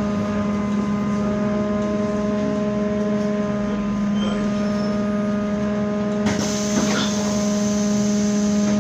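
Inside a moving MAZ-203T70 trolleybus: a steady electrical hum held at one pitch with a row of even overtones, over road and tyre rumble. About six seconds in, a brighter hiss joins.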